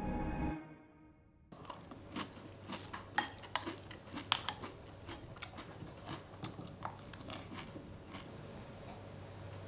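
A man eating with a metal spoon: sharp clinks of the spoon against the dish and crunchy chewing. It begins about a second and a half in, after film music cuts off within the first second.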